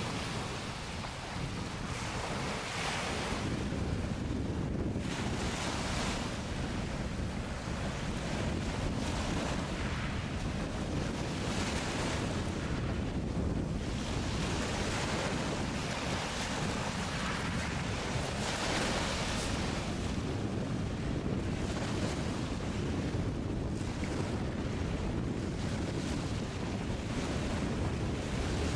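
Small waves washing onto a shingle beach, the hiss swelling and fading every few seconds, with wind buffeting the microphone as a steady low rumble.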